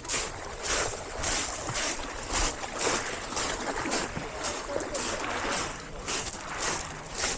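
Seaside outdoor noise, sea and wind on the microphone, coming in swishing swells about twice a second.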